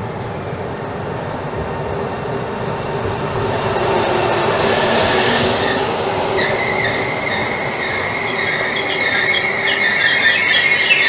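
Electric regional train running in along an underground station platform, its rumble growing as the cars come alongside, with a short hiss about halfway through. From about six seconds in its wheels and brakes squeal with a shrill, wavering note as it slows.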